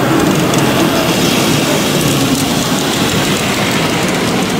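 Model steam locomotive pulling freight wagons along its layout track, over a steady background hubbub.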